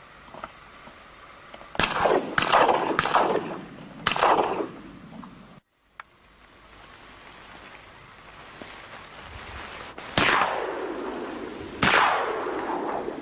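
Shotgun shots, each ending in a long echoing tail: four in quick succession starting about two seconds in, then two more near the end.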